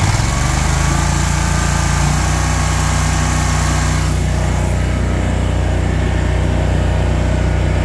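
Kawasaki FX730V V-twin engine on a Hustler X-One zero-turn mower, revved up from idle over the first second or two, then running steadily at high speed. It runs smoothly, without odd vibration.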